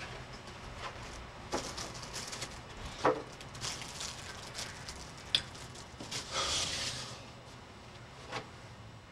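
Small knocks, clicks and a short rustle of snack cakes, paper plates and a hat being handled and set down on a table. The sharpest knocks come about three seconds in and about five and a half seconds in, and the rustle about six to seven seconds in.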